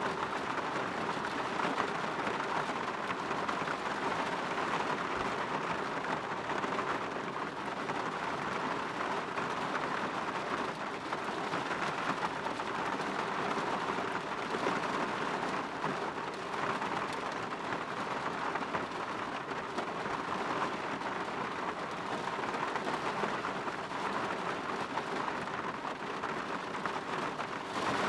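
Steady rain falling on a window, an even hiss of drops.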